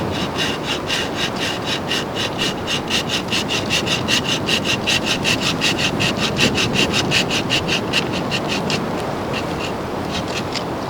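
Hand saw cutting wood in quick, even strokes, about five or six a second. The strokes stop about nine seconds in, and a few scattered strokes follow near the end. Steady surf and wind run underneath.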